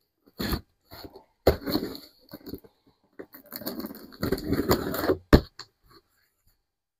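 Box cutter slitting the packing tape along a cardboard box's seam, with cardboard scraping in short spells and a longer stretch in the middle, then one sharp knock a little after five seconds in.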